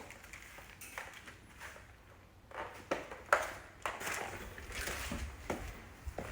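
Footsteps with scattered irregular knocks and clicks, over faint room noise.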